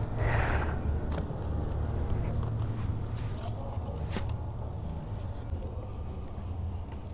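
Steady low outdoor rumble with rustling and light handling noise: a brief rustle just after the start and a sharp click about four seconds in.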